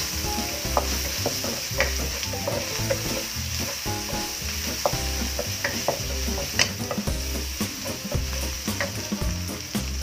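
Chopped garlic sizzling in hot oil in a nonstick wok, fried until fragrant, with a wooden spatula stirring and scraping it in irregular clicks and taps against the pan.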